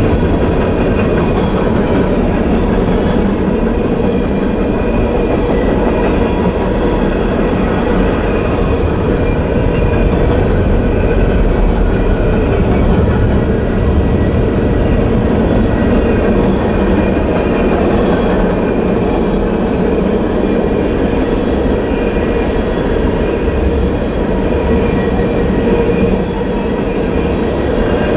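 Freight train of covered hoppers and tank cars rolling steadily past: a loud, continuous rumble of steel wheels on the rails with clatter over the rail joints.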